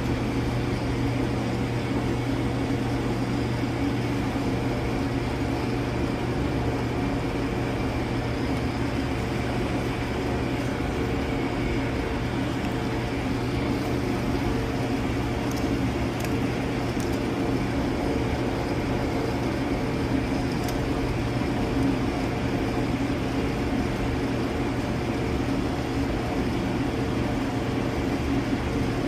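Steady hum and rumble of boiler-room machinery, unchanging, with a strong low drone and a faint higher tone above it.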